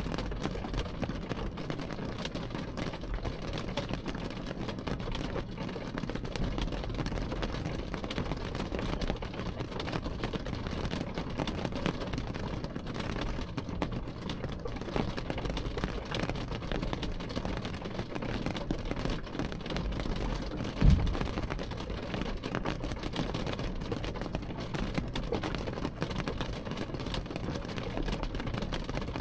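Rain falling steadily on a car's glass and body, heard from inside the car as a low, even rush. A single dull thump stands out about twenty-one seconds in.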